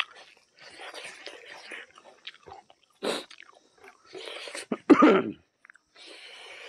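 A person eating by hand, chewing and working rice and curry with the fingers in a series of short noisy bursts. About five seconds in comes a brief, louder pitched sound, like a voice or an animal.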